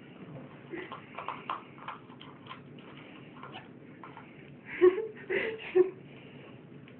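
Faint scattered clicks and taps, then three short vocal sounds from a person about five seconds in, quick, voice-like and not words.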